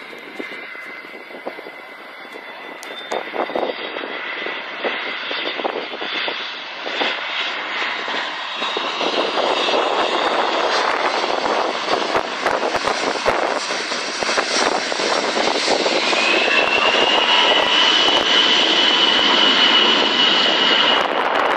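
Jet noise from the Beriev Be-200 amphibious aircraft's two D-436TP turbofan engines as it flies over. The noise grows louder over the first several seconds and then holds. In the last few seconds a high engine whine rises and steadies.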